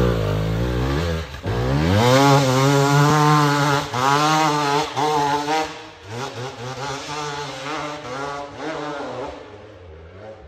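Enduro dirt bike engine revving hard as the bike pulls away, its pitch climbing and falling with the throttle and gear changes. It grows fainter after about six seconds as the bike rides off into the distance.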